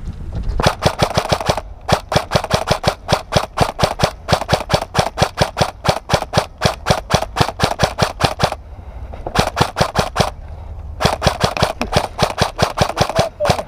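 Airsoft gun firing in long strings of rapid, evenly spaced shots, about six a second. The strings break off briefly about two seconds in and again near nine and eleven seconds.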